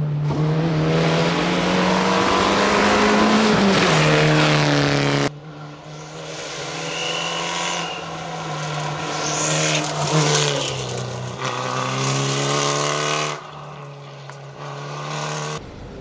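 Fiat Egea 1.4 T-Jet rally car's turbocharged four-cylinder engine revving hard at stage speed, rising in pitch over the first few seconds. The sound jumps abruptly about five seconds in and again near the end as the shot changes, with the engine revving up and down through bends.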